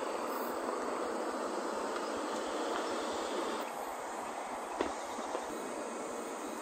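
Steady outdoor background hiss, even and unchanging apart from a slight shift in tone about three and a half seconds in. One sharp click near the five-second mark.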